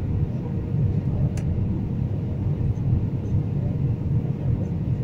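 Airliner cabin noise in flight: a steady low rumble of engines and airflow with a faint steady hum, and one light click about one and a half seconds in.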